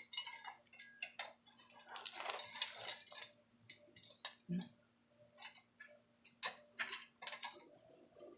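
Light, irregular metal clicks and scrapes from a pick or pliers working washers and a bolt into the tailpipe mount, with a faint steady hum underneath.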